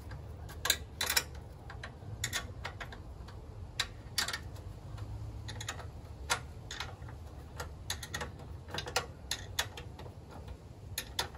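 Irregular clicks and ticks of a wrench loosening the handle-mounting bolts on a Toro Power Max HD 828 snow blower.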